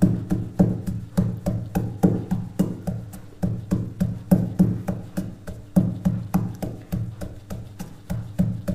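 Pestle pounding dried pomegranate seeds (anardana) in a marble mortar: a steady run of dull knocks, about three a second.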